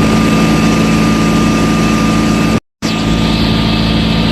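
A large engine running steadily: a loud, even low drone with a thin steady whine above it. The sound drops out completely for a moment about two and a half seconds in, then resumes unchanged.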